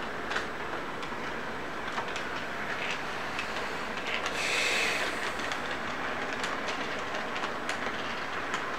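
Model electric train running along its track close by, a steady rolling rumble with scattered clicks from the wheels over the rail joints. It grows louder for about a second, four to five seconds in, as the diesel locomotive passes nearest.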